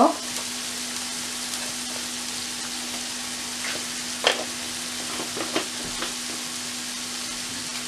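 Chopped onions and ground spices sizzling steadily in hot oil in a karahi, with a few louder pops around the middle.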